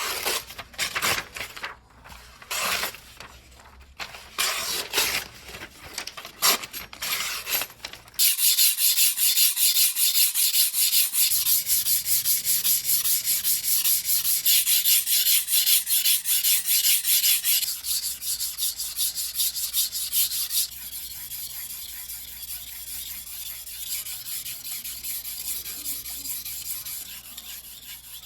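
Steel blade of a Damascus gyuto chef's knife scraping on a whetstone during sharpening. It begins with short, irregular strokes, then settles into fast, even back-and-forth strokes that turn quieter about two-thirds of the way through.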